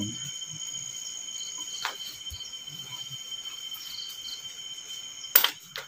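Crickets trilling steadily in a continuous high-pitched drone. There is a faint click about two seconds in and a sharp, loud knock near the end.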